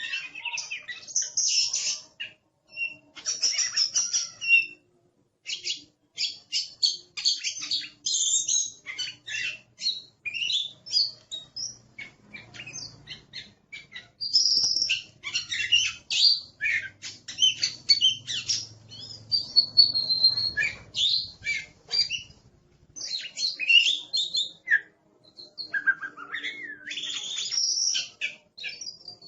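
Oriental magpie-robin (kacer) singing a loud, busy song of rapid chirps and whistled notes, the phrases broken by short pauses.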